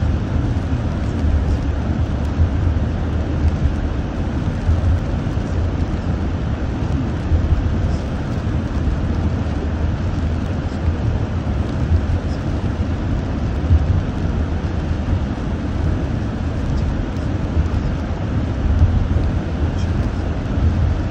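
Steady low rumble of a car driving on a wet road, heard from inside the cabin: engine and tyre noise from the rain-soaked surface.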